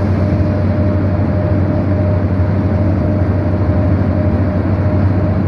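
Steady rumble of a moving road vehicle heard from inside, with a low hum and a faint steady whine.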